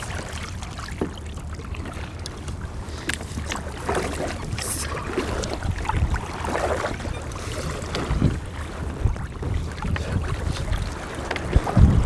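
Wind rumbling on the microphone over water lapping and splashing around a fishing kayak, with scattered small knocks and a stronger gust near the end.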